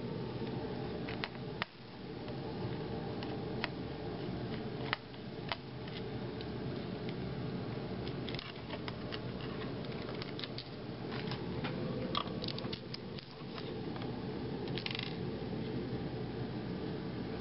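Scattered small clicks and taps of a screwdriver turning screws out of a laptop's plastic base, over a steady low hum.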